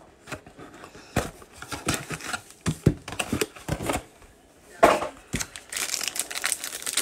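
Cardboard trading-card box being opened and handled, with a run of light clicks and knocks from the flaps, then a foil card pack crinkling as it is handled and started open near the end.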